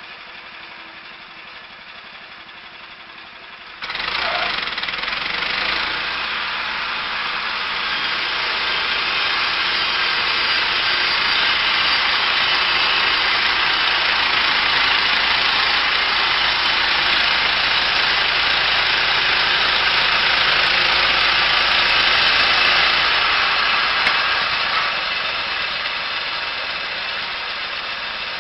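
A heavy machine's engine running steadily; about four seconds in it suddenly gets much louder and stays loud with a dense, hissing mechanical noise over the engine.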